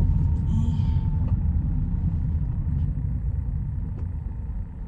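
Road and engine rumble inside a moving car's cabin, a steady low rumble that eases a little toward the end.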